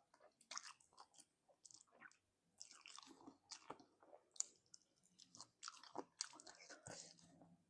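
A person chewing and biting into braised chicken feet: faint, short, irregular chewing sounds and small wet mouth clicks.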